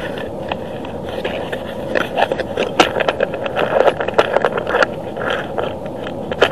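Camera handling noise: a steady hiss with irregular scraping and clicking, busiest from about two seconds in.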